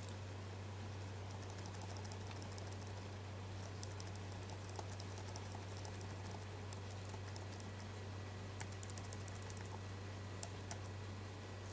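Faint clicking of laptop keys in scattered quick runs, over a steady low hum.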